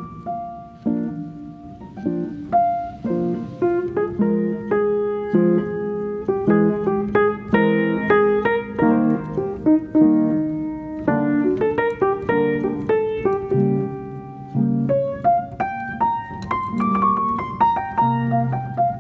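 Background piano music: a melody of single notes over low chords, each note struck and left to fade.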